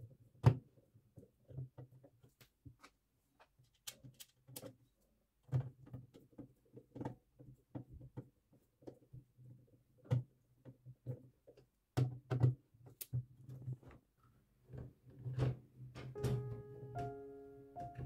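Scattered small metal clicks and knocks of a screwdriver and screws on the steel motherboard tray of a PC case, with a low hum coming and going. Soft background music comes in near the end.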